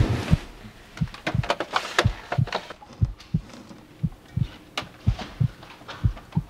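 A slow heartbeat sound effect, low double thumps (lub-dub) about once a second, with scattered light knocks and rustles on top.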